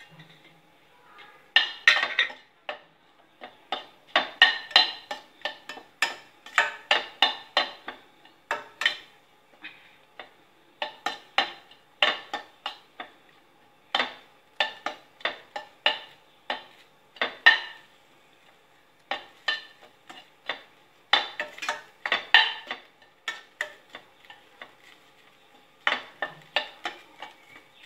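Long metal spoon scraping and clinking against a stainless steel kadai while grated coconut and small onions are stirred and lightly dry-roasted. The strokes come in quick runs with short pauses between them.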